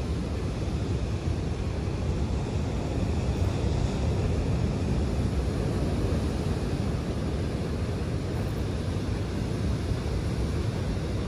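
Ocean surf washing steadily on a sandy beach, mixed with wind buffeting the microphone, a continuous rushing noise heaviest in the low end.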